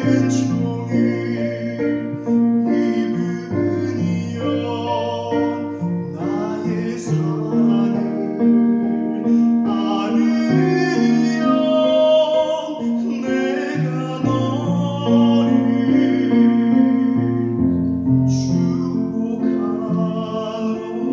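A singer performing a slow sacred song over held keyboard chords, the bass notes changing every few seconds.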